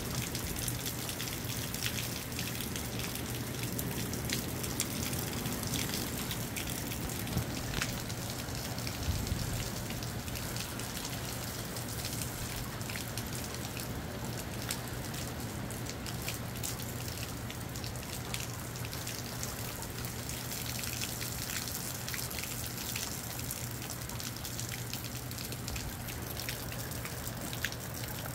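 Moderate rain falling steadily, with many single drops ticking sharply on nearby surfaces. A brief low rush of wind comes about nine seconds in.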